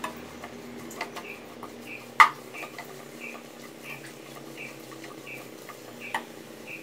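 Wooden spatula stirring sliced onions and ginger-garlic-green chilli paste in a nonstick pan: scraping strokes with a few sharp knocks against the pan, the loudest about two seconds in, and a faint short squeak repeating about twice a second.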